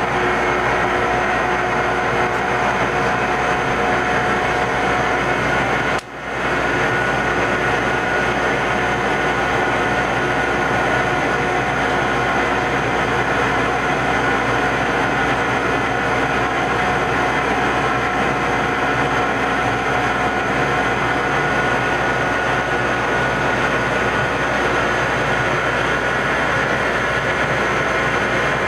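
Metal-cutting machine tool running steadily while machining a spherical seat in a locomotive throttle part: a constant mechanical noise with steady whining tones, broken once by a short drop about six seconds in.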